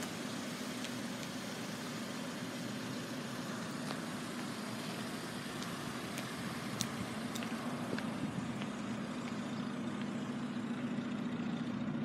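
Steady low engine hum under an even background hiss, with a few faint clicks.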